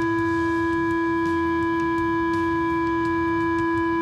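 Steady, unwavering pure tone from a loudspeaker driving a plastic Chladni plate, fed a sine wave at about 333 hertz from a phone tone-generator app. This is one of the plate's resonant frequencies, at which the salt on it gathers into sharp nodal-line patterns.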